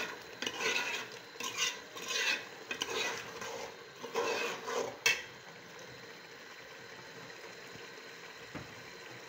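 Metal ladle stirring thick soup in a metal pot, scraping against the pot in irregular strokes for about five seconds. It ends with one sharp clink of the ladle on the pot.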